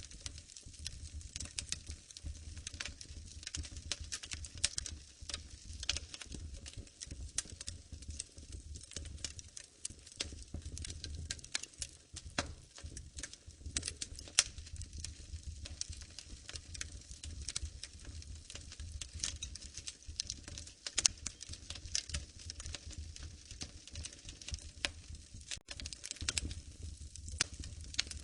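Wood fire crackling in a fireplace: a continual stream of small irregular snaps and pops, a few much sharper than the rest, over a low steady rumble.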